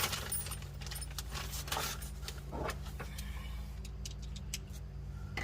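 Faint metallic clinks and rattles of small hardware, nuts and bolts and shifter parts, being handled, over a steady low hum.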